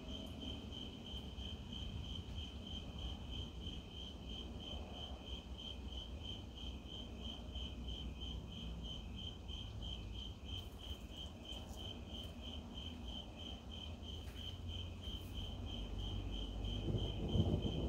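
Crickets chirping in a steady, even rhythm of about four chirps a second. A low rumble of distant thunder swells near the end.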